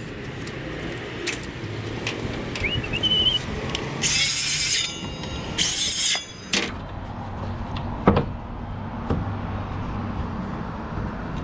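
Cordless Makita circular saw making two short cuts through plywood, each about a second long, with the blade still spinning between them. A sharp knock follows about eight seconds in.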